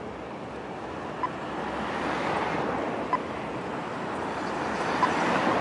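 Pedestrian crossing signal's locator tone: three short ticking beeps about two seconds apart, over street traffic noise that grows louder as vehicles pass toward the end.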